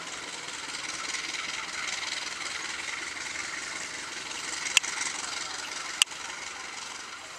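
Diesel locomotive engine running steadily as the locomotive rolls slowly through the station. Two sharp clicks sound a little over a second apart, past the middle.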